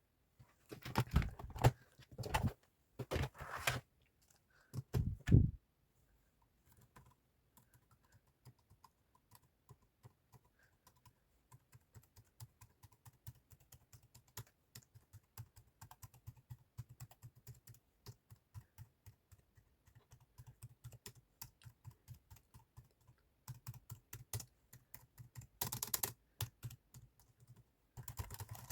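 Typing on a computer keyboard: a few loud, rapid flurries of keystrokes in the first five seconds, then lighter, sparser key clicks that grow denser again near the end.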